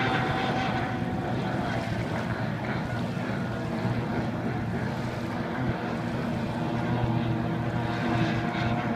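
Racing hydroplane engine running at speed across the lake, a steady drone whose pitch drifts slightly as the boat moves.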